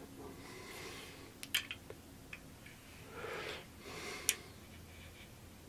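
Soft breathing with a few light, sharp metallic clicks, about one and a half and four seconds in, as a spring trigger-pull gauge is set against a pistol's trigger.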